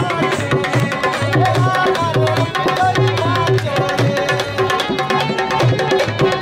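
Live Indian folk music: a dholak drum played in quick, dense strokes under sustained harmonium notes.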